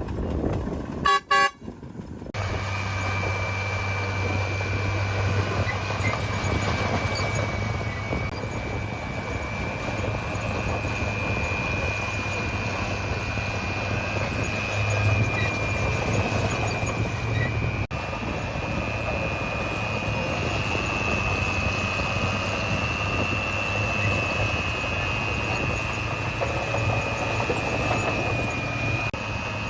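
A short vehicle horn toot about a second in, then heavy earthmoving machinery running steadily: a dump truck or bulldozer engine giving a low hum with a high whine over it that drifts slightly in pitch.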